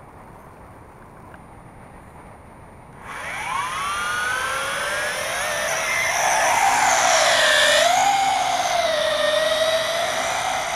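A JJRC H26 toy quadcopter's motors and propellers spool up suddenly about three seconds in with a rising whine. Through take-off and climb the whine wavers up and down in pitch as the throttle changes.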